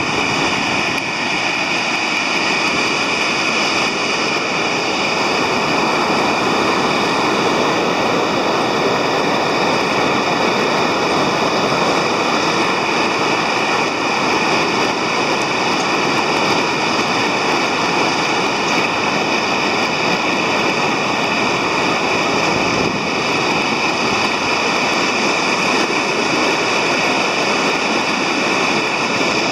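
Steady rushing of water pouring out below a dam, churning through the concrete outflow channel and down stepped concrete channels, one unbroken roar.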